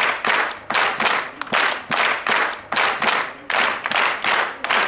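A large group of people clapping together in rhythm, about two claps a second.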